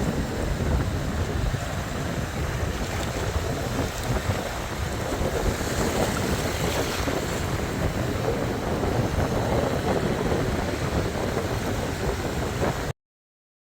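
Sea waves washing, with wind buffeting the microphone in a steady low rumble; the sound cuts off abruptly near the end.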